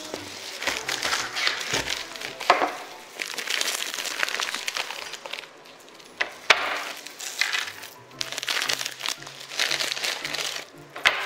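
Plastic instant-noodle packet crinkling as it is opened and handled, with a few sharp cracks, the loudest about two and a half and six and a half seconds in. Background music plays under it.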